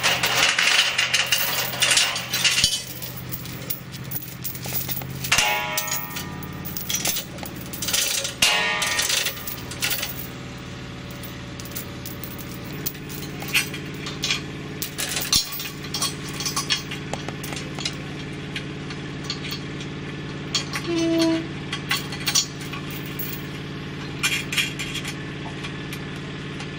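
Steel lifting chain clinking and rattling in irregular bursts as it is handled and looped over a forklift fork, over the steady hum of the forklift's engine idling.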